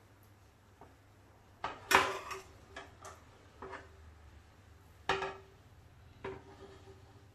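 Metal tongs and a frying pan clanking as pieces of grilled octopus are lifted out and plated: several sharp clanks, the loudest about two seconds in and another about five seconds in, some followed by a short metallic ring.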